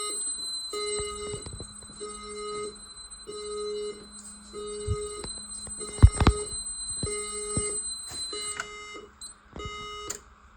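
Fire alarm system going off after a smoke detector is set off by aerosol test smoke: a beep about once a second over a steady high-pitched tone, which stops about eight and a half seconds in. A couple of sharp knocks about six seconds in.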